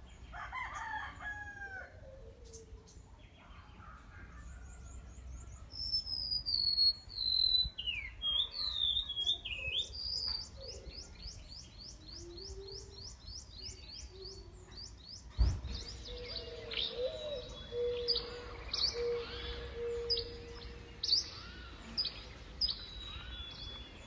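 Backyard morning bird chorus: a mix of chirps and songs, including a rapid trill of short repeated high notes, then a string of sharp chirps about once a second. A single brief knock comes about halfway through.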